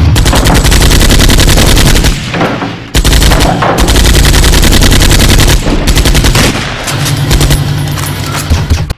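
Rapid automatic gunfire, very loud. A long run of fire dips briefly about two seconds in, comes back for a second long run, then carries on lighter before cutting off suddenly.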